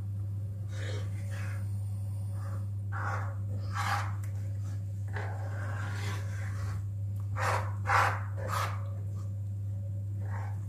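A metal spoon stirring thin flour porridge (xəşil) in a pan, giving several brief scrapes against the pan over a steady low hum.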